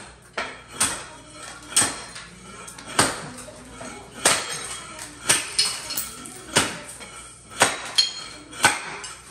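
Repeated sharp, hard knocks with a brief metallic ring after each, about one a second and slightly irregular, typical of work during a kitchen renovation.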